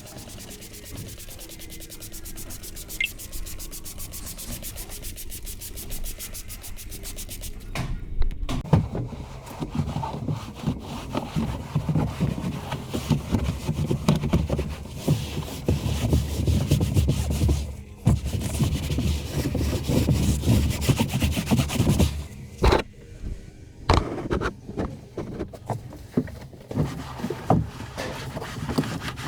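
Irregular rubbing and scraping against a surface, quieter with a fast even ticking for the first eight seconds or so, then louder and coarser.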